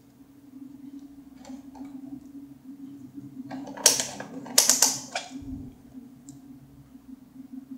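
Rotary range selector switch of an analog multimeter being turned, giving a quick run of loud clicks a little past halfway through.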